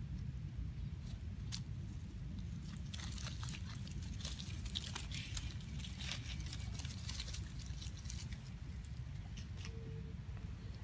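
Dry leaf litter crackling and rustling under macaques moving over the forest floor, with scattered sharp crackles that are thickest in the middle. A steady low rumble runs underneath.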